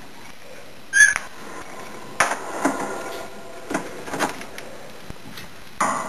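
A budgie's beak striking a hard plastic toy ball in a series of short, sharp knocks and rattles, about six in all. The loudest, about a second in, carries a brief high tone.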